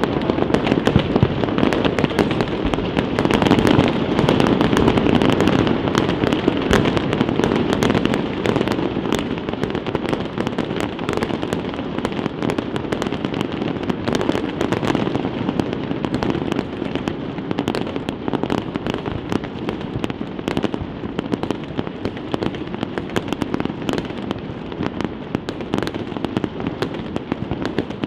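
A fireworks display: a dense, continuous barrage of bangs and crackling from many shells bursting at once. It is loudest over the first several seconds, then eases a little.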